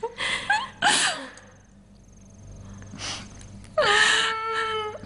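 Sharp sobbing breaths, then about four seconds in a young girl bursts into a long wailing cry.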